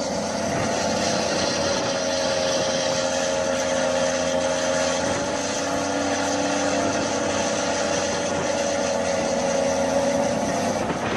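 A large articulated four-wheel-drive tractor's engine running steadily under load as its tyres churn in heaped loose soil, with a steady whine held over the engine drone.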